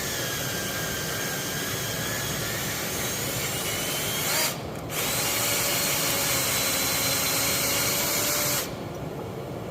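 Power drill driving a thread-chasing tap through a bolt hole in a cast transmission case, running in two spells with a short stop about halfway through, its whine shifting in pitch, and cutting off a second before the end.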